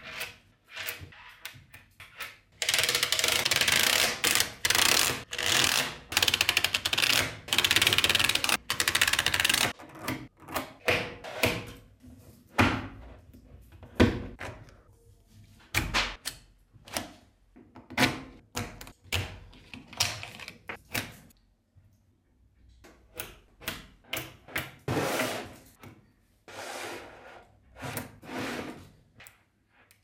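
5 mm magnetic balls clicking and rattling as they are pressed and snapped into rows by hand. A long stretch of dense rattling comes in the first several seconds, followed by separate sharp clicks and short rattles.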